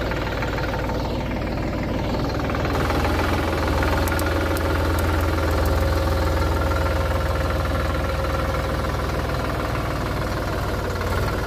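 Diesel engine of a Sonalika DI 47 RX Sikander 4WD tractor running steadily at low speed with a knocking clatter as the tractor moves slowly over dry ground, getting a little louder a few seconds in.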